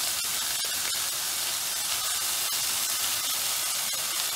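Chicken, vegetables and mushrooms sizzling steadily in a hot frying pan, a constant hiss with a few faint pops.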